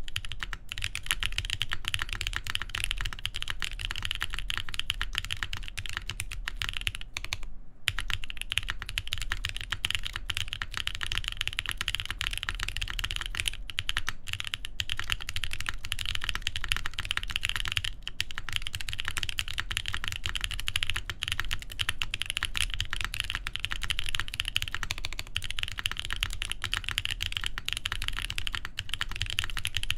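Continuous fast typing on a TGR Jane v2 CE mechanical keyboard with lubed Boba U4T tactile switches, a full carbon fiber plate and GMK keycaps: a dense run of muted keystroke clacks with a brief pause a little before 8 seconds in.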